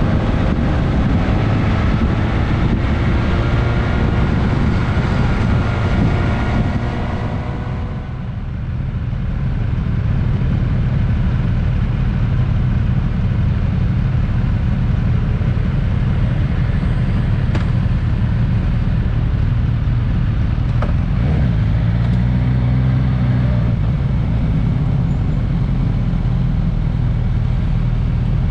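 Suzuki GSX-S1000S Katana's inline-four engine on the move, climbing in pitch as it pulls through the revs for the first several seconds. Around eight seconds in the throttle comes off, and it then runs on at low revs with a steady deep rumble.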